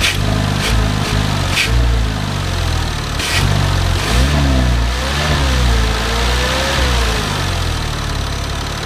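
Porsche Cayman 987's flat-six engine running, with brief rises and falls in revs about four seconds in and again a little later. Over the engine lies a steady hissing, blowing-air sound, which the owner thinks doesn't sound right. A few sharp ticks come in the first few seconds.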